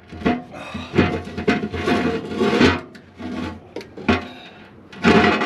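Metal scraping and rubbing as the hoist brake band of a Bucyrus-Erie 22B dragline is wrestled around its drum, with a few knocks. The scraping is heaviest from about one to three seconds in, and there is a short loud scrape near the end.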